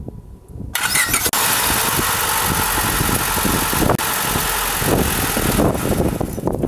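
A 1997 Honda 1.5-litre petrol four-cylinder engine, powered only by a portable jump starter with the car battery disconnected, cranks for a moment and catches almost at once. It then runs steadily and eases off near the end.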